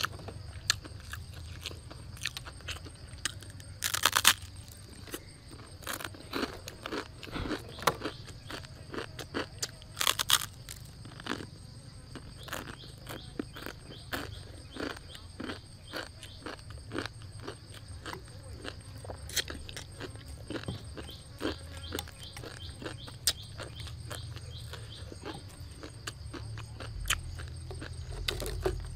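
Dry, uncooked instant noodles being bitten and chewed: irregular crisp crunches and snaps throughout, with two louder crunches about 4 and 10 seconds in.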